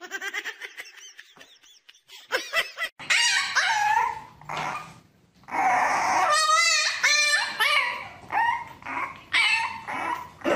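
A puppy whining and yelping in a string of rising and falling cries, starting about three seconds in, some of them with a fast wavering tremble.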